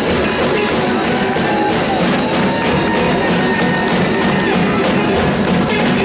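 Steel band playing: steel pans with a drum kit keeping a steady beat.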